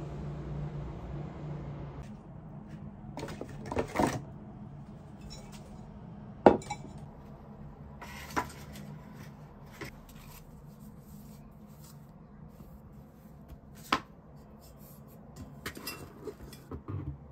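Enamelled cast-iron Staub cocotte and its lid clinking and knocking as they are handled and unpacked: a handful of separate knocks, the sharpest about six and a half seconds in, over a low steady hum.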